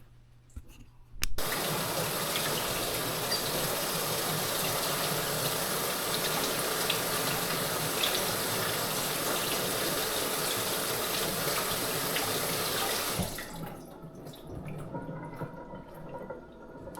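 Water running from a tap into a sink in a steady stream. It is turned on abruptly about a second in and shut off about four seconds before the end, leaving faint small clicks and handling sounds.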